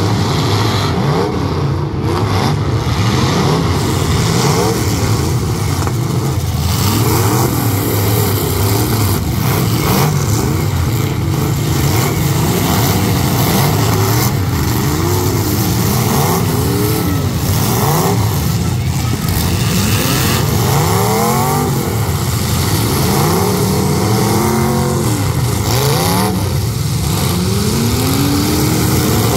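Engines of several derby trucks revving at once, their pitches climbing and falling over and over above a steady low engine drone.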